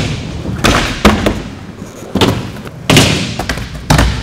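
Skateboards slapping and landing on wooden ramps and concrete: about five sharp cracks and thuds, each echoing through a large warehouse hall, with wheels rolling between them.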